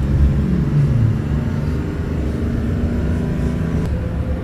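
Minibus engine and road noise heard from inside the cabin while driving, a steady low drone. The engine note rises briefly about a second in.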